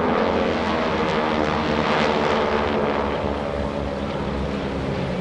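A formation of six SNJ/T-6 Texan trainers flying past, their nine-cylinder Pratt & Whitney R-1340 radial engines and propellers droning together. The sound is loudest about two seconds in, then eases slightly as they bank away.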